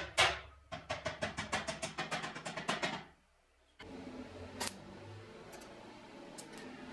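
Steel hammer striking a washer on the end of a short steel pipe clamped in a vise, closing one end of the pipe. A few separate blows are followed by a fast, even run of about five ringing blows a second for two seconds. After a cut comes a faint steady hiss.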